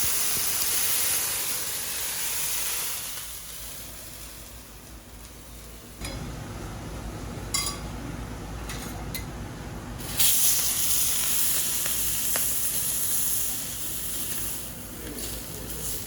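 Food sizzling on a hot teppanyaki griddle. A loud hiss at the start fades over a few seconds, a few sharp clicks follow, and a second loud burst of hissing starts suddenly about ten seconds in.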